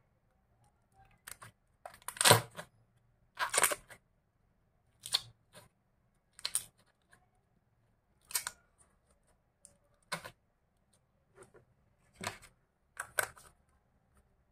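A clear plastic bottle packed with glitter slime squeezed by hand, giving about a dozen short squishy crackles at irregular gaps of roughly a second, the loudest about two seconds in.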